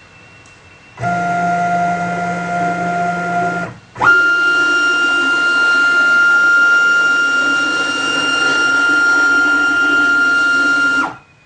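CNC machine's stepper motor driving its ball screw, whining steadily as the axis traverses in two moves. First comes a lower-pitched whine for about three seconds. After a brief gap comes a higher whine for about seven seconds, which rises in pitch as the motor speeds up at the start and drops as it slows at the end.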